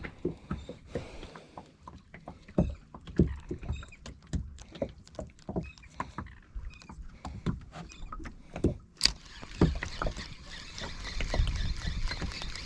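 Water lapping and slapping against the hull of a small aluminium boat, with irregular light knocks over a low rumble. A steadier hiss joins about nine seconds in.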